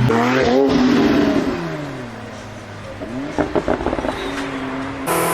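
Porsche sports car engine revving, its pitch rising and then falling away as the throttle closes, followed about three seconds in by a rapid string of sharp exhaust pops and crackles: overrun backfire of the kind that spits flames. Near the end it cuts to another engine running steadily.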